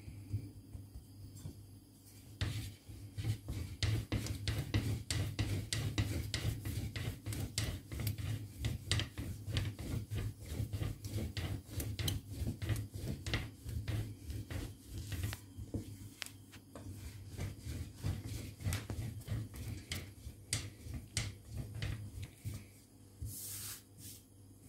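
A long, thin wooden rolling pin (oklava) rolling back and forth over lavash dough on a floured board, making a continuous run of rubbing and light wooden clatter with a low rumble. It starts about two and a half seconds in, after the dough has been pressed flat by hand, and a brief hiss comes near the end.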